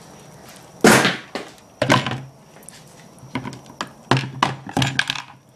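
Knocks and taps of objects handled on a wooden workbench. One heavy thunk comes about a second in and another a second later, then a quick run of lighter clicks and taps.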